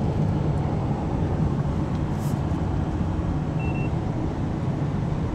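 Steady low road and engine noise of a moving car, heard inside the cabin, with a short faint hiss about two seconds in.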